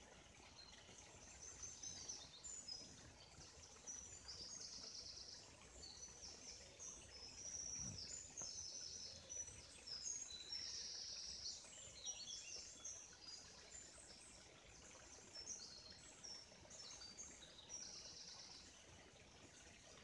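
Songbirds singing faintly in woodland, a run of high-pitched chirps and quick fast trills, over a steady soft rush of a forest stream.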